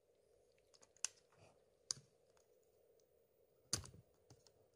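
A few faint, sharp plastic clicks against near silence, the loudest about three-quarters of the way through: a plastic spudger prying the rear camera module of a Samsung Galaxy S3 loose from its connector.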